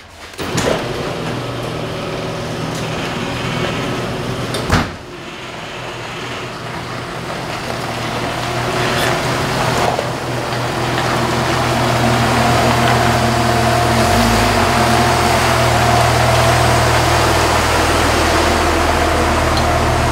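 Garage door opener running as the sectional door rolls up, with a sharp click about five seconds in. A Jeep Wrangler TJ's engine runs and grows louder through the second half as the Jeep drives into the garage.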